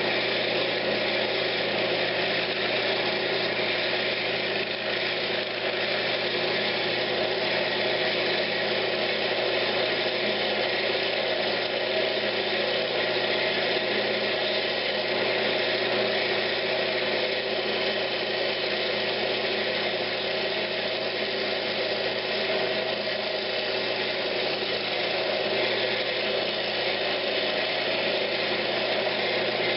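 Wood lathe running steadily while a turning tool makes light cuts in a pine cabinet knob, cleaning out tear-out in the loose-grained wood.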